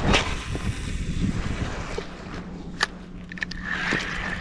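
Small boat's motor humming low with wind noise on the microphone, a sharp knock just after the start and a click near three seconds in.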